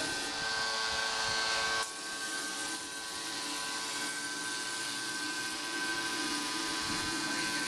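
Spray-texture rig running for a deck coating: a steady motor whine with hissing air. The hiss drops slightly about two seconds in.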